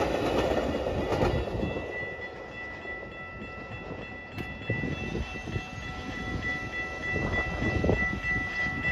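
Metra bilevel commuter train running past on the rails. From about two seconds in, a railroad crossing bell rings steadily while the crossing gates rise.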